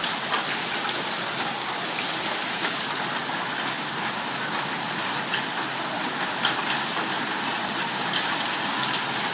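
Hailstorm: hail and rain coming down steadily on a lawn, a dense even hiss with a few scattered small ticks of stones striking.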